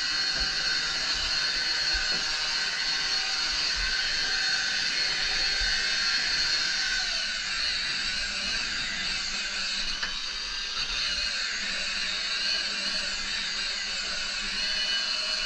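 Electric rotary polisher running steadily with its pad pressed on a surfboard's resin gloss coat, a constant high whine over the hiss of the pad on the surface. It is cutting back the finish coat.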